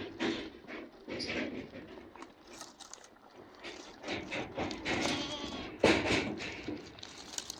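Goats moving among freshly trimmed tree branches: rustling and shuffling of leaves and twigs, with a sharp knock about six seconds in.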